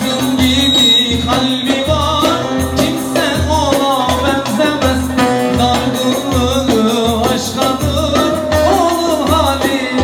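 Live Turkish folk band playing an upbeat dance tune: a long-necked lute and keyboard melody over a steady drum beat about two beats a second, with a man singing into a microphone.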